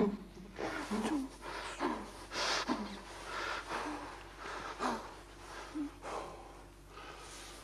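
A man breathing heavily and unevenly in distress, with short voiced catches in some breaths; the breaths grow quieter toward the end.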